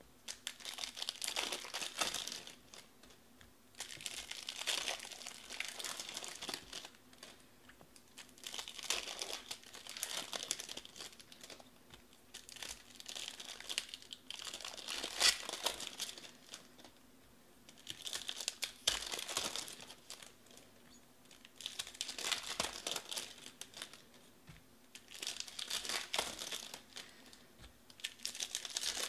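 Plastic wrappers of 2020 Bowman Baseball hobby card packs being torn open and crinkled by hand, in repeated bursts every few seconds as one pack after another is opened.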